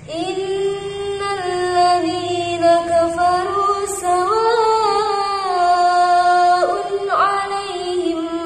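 A woman reciting the Qur'an in tartil style: a chanted melody with long drawn-out vowels that glide up and down in pitch. It enters at the start and breaks off briefly for a breath near the end before going on.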